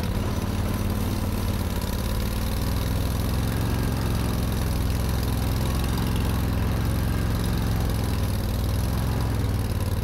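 Argo 6x6 amphibious ATV's engine running steadily as the vehicle drives along.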